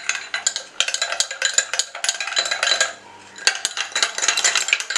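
Steel spoon stirring liquid in a small bowl, scraping and clinking against the sides in quick strokes, with a short pause about three seconds in.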